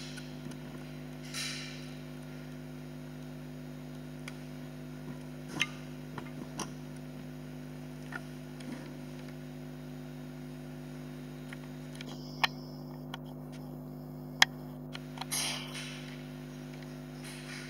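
Steady low electrical hum, with scattered sharp light clicks and two brief hisses.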